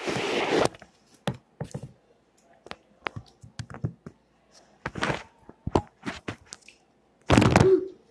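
Scattered knocks and clicks with short, loud rustling bursts at the start, about five seconds in and near the end, the last being the loudest.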